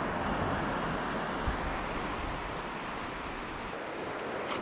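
Surf washing steadily onto the beach, with wind noise on the microphone and a single low thump about a second and a half in.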